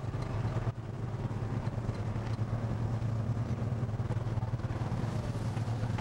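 A crab boat's engine runs with a steady low drone, under a haze of wind and rough-sea noise.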